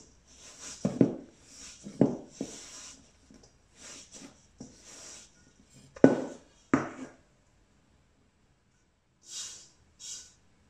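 Ramen noodle dough being kneaded by hand in a stainless steel bowl: irregular soft thuds and squishes, one or two a second, the sharpest about six seconds in. After a pause, two brief scrapes near the end as the bowl is tipped over.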